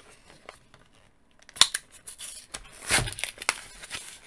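Hands tearing open and crinkling the packaging bag that holds an action figure's display stand. A quiet start, then a string of sharp tearing and crackling noises from about a second and a half in, loudest around three seconds in.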